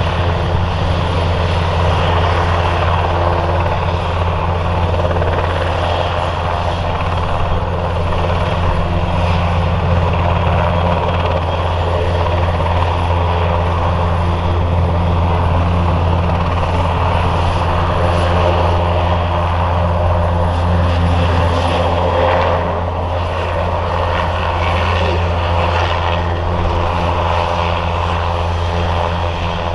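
NH90 NFH naval helicopter running on the ground with its twin turboshaft engines and rotors turning as it taxis: a loud, steady mix of turbine whine and rotor noise that eases slightly in level near the end.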